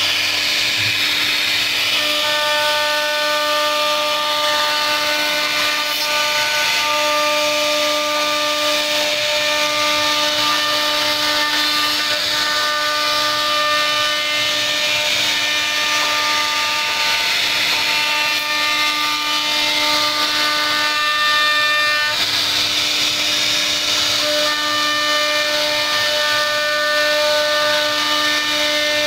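CNC router spindle whining steadily as its cutter carves a relief pattern into a wooden board, over a rasping cutting noise. The whine weakens for a few seconds about two-thirds of the way through, then comes back.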